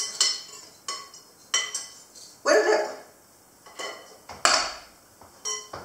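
Utensils clinking against kitchen dishes: a series of seven or eight irregular, sharp clinks, each with a short ring, as ingredients are measured and mixed.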